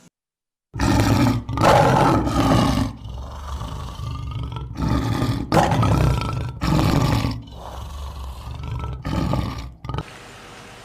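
A big cat roaring, a series of about eight loud, rough roars and growls one after another. Near the end it cuts to a steady hiss.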